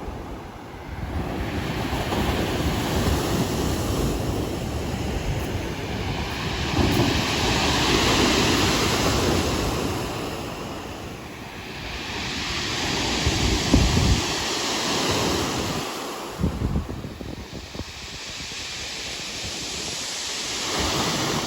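Sea breakers washing onto the beach, swelling and fading in long surges every few seconds, with wind rumbling on the microphone.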